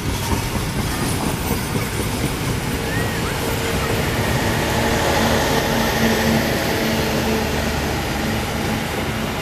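Passenger train carriages rolling past on a curved track, a steady rumble of wheels on the rails. A low steady hum comes in about three seconds in.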